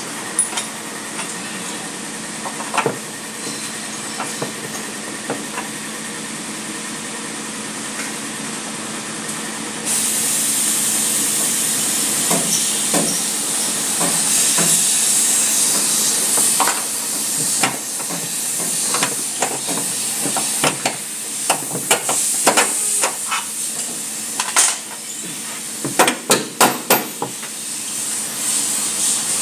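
A long screwdriver working at a car's front lower control arm, giving scattered sharp metallic clicks and knocks that come faster near the end, over a steady hiss.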